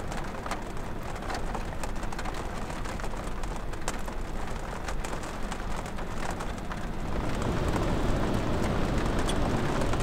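Heavy rain falling on a teardrop trailer's roof and skylight: many separate drop taps over a steady hiss. A deeper, louder rush builds in the last three seconds.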